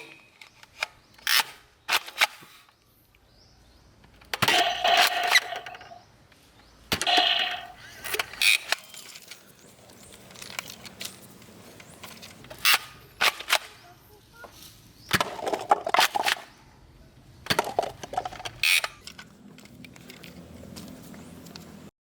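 Toy guns being handled: a string of sharp plastic clicks and knocks, with a few short clattering rattles.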